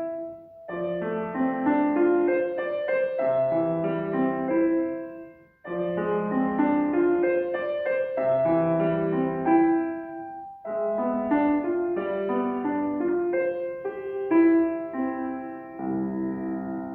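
Solo piano playing a folk-style children's piece in four phrases of about five seconds each, every phrase starting again after a short break.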